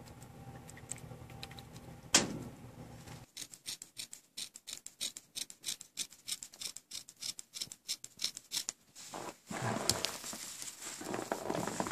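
Scissors snipping through a cotton T-shirt in a quick run of short cuts, then the fabric rustling as it is handled. A single sharp knock comes about two seconds in.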